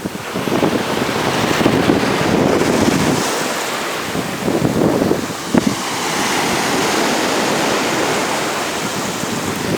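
Sea waves breaking and washing up on a beach, swelling and easing, with wind buffeting the microphone.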